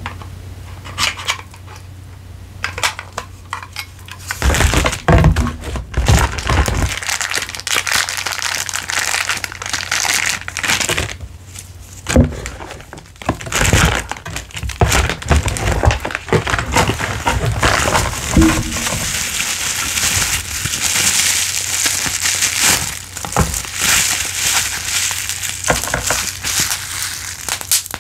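Packaging being unwrapped and handled: a few light taps and clicks at first, then from about four seconds in, dense crinkling and rustling with occasional low thumps.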